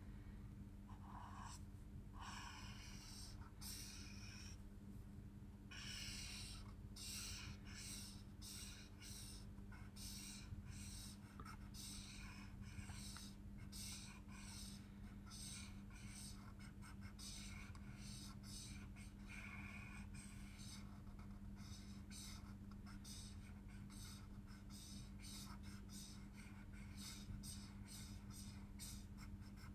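Chisel-nib marker scratching across paper in many short strokes, faint and growing quicker in the second half, as flat areas are filled with colour. A steady low hum runs underneath.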